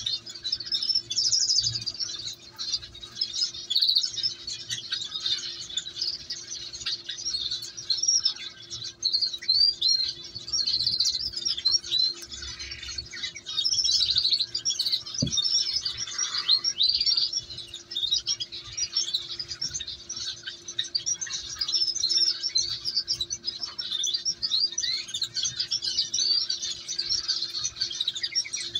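Canaries chirping: a steady stream of high, rapid cheeps with no pause, over a faint steady hum.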